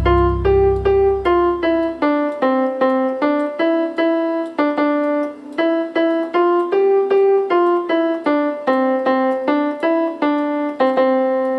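A simple melody played one note at a time on a portable electronic keyboard set to a piano voice, about two to three notes a second, each note dying away before the next. A low drone fades out during the first two seconds.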